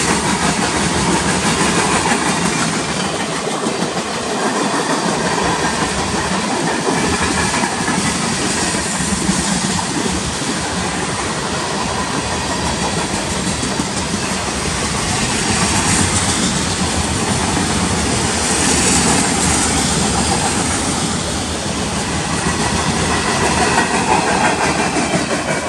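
Freight cars of a mixed freight train, tank cars and covered hoppers, rolling past close by: steel wheels on the rails making a steady, loud rolling noise that swells and eases slightly as the cars go by.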